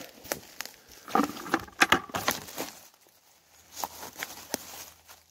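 Crackling and rustling of dry leaves and twigs on the forest floor, in clusters of sharp snaps, the loudest a little under two seconds in.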